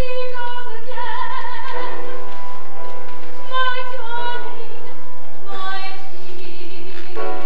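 A woman singing a solo, holding long notes with vibrato and gliding between pitches, over sustained chords from the accompaniment that come in about two seconds in.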